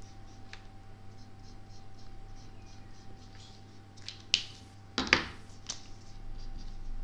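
Whiteboard marker scratching across a whiteboard as sections are coloured in, then a few sharp plastic clicks a little after four and five seconds in as the markers are handled, one capped and set down on the board's tray.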